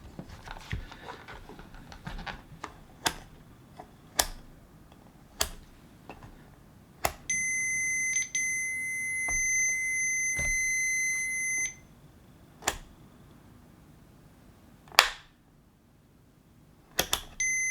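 Fluke 177 digital multimeter's beeper sounding one steady high beep for about four seconds, briefly broken once near its start, among scattered sharp clicks. A second beep starts right at the end.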